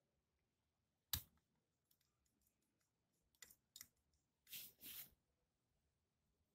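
Fingers working the knurled metal screws on the lens holder of a Newton's rings apparatus: one sharp click about a second in, a couple of faint ticks, then two short scrapes a little later.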